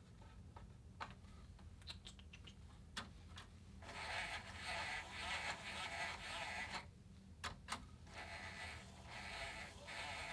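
A Remington Streamliner portable typewriter being handled: scattered light clicks of its parts, then scraping and rubbing from about four seconds in for around three seconds, and again near the end after a couple of sharp clicks.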